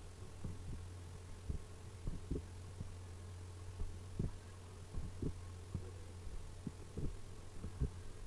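Steady low electrical hum with irregular soft low thumps, about one or two a second.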